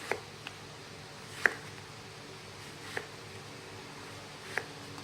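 A kitchen knife cuts down through breadfruit onto a board, giving four sharp taps about a second and a half apart over a low steady hum.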